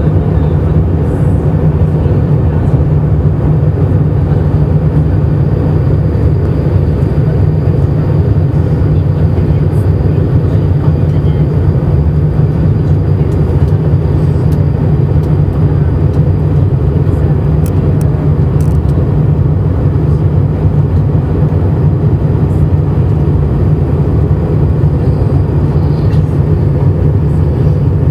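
Jet airliner cabin noise in flight: the engines and the rush of air past the fuselage make a deep, even rumble that never changes.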